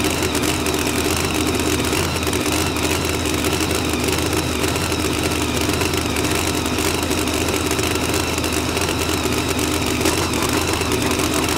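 Supercharged 511-cubic-inch big-block Chevy V8 in a drag-racing Corvette, idling steadily and loudly.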